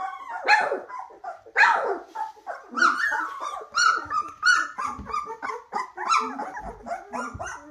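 A litter of young golden retriever puppies squealing and whining, many short high calls overlapping, several a second.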